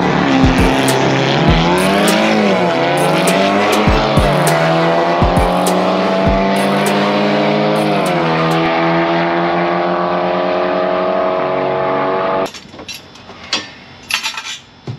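Volkswagen MK5 GTI's turbocharged four-cylinder engine at full throttle on a drag strip run, pitch climbing and dropping at each upshift about every two seconds, then holding and slowly falling. It cuts off abruptly near the end, leaving a few faint knocks.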